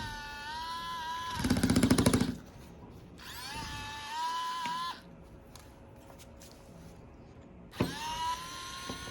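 Small electric screwdriver motor whining in short runs, its pitch rising as it spins up, with a brief loud buzzing rattle about a second and a half in. It stops about five seconds in and starts up again near the end.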